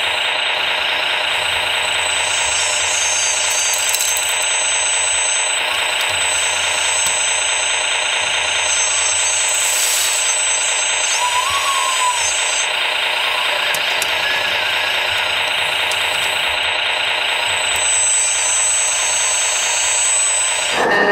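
Electronic diesel-engine sound of a 1/14-scale RC truck or machine's sound module, played through a small speaker and running steadily with a knocking diesel character. A thin high whine from the model's electric drive comes and goes about three times, rising and falling in pitch.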